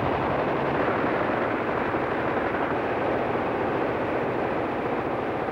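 Battle sound effects on an old optical film soundtrack: a dense, steady din of gunfire and explosions blurred together, with no single shot standing out.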